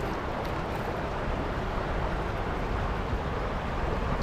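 Steady rush of a stream's current, with a low rumble underneath.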